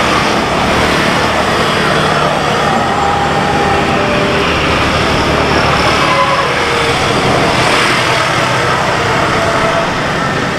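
Steady road traffic noise from vehicles running and passing, with a continuous low engine hum.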